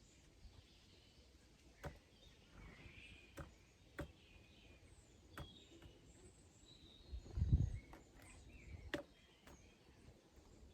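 Faint garden ambience with small birds chirping thinly, broken by several sharp clicks or taps. A louder low thump comes about seven and a half seconds in.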